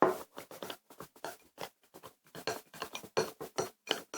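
Sticky homemade slime being worked and mixed, giving an irregular run of short wet clicks and pops, about four or five a second.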